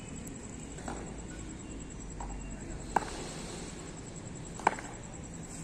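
Sharp single knocks on a concrete cricket pitch, from a bat or tape ball striking it. Two loud ones come about three seconds and just under five seconds in, with a couple of fainter ones before, over a low steady background noise.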